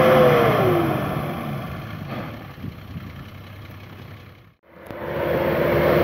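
Nissan Patrol off-roader's engine held at high revs in mud, the revs falling away about half a second in and the engine noise fading to a low rumble. After a sudden break, a Nissan Pathfinder 2.5 dCi diesel revs steadily in snow near the end.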